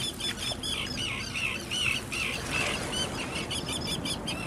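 A bird calling in a fast, unbroken series of short chirps, about five a second, over a low background hiss.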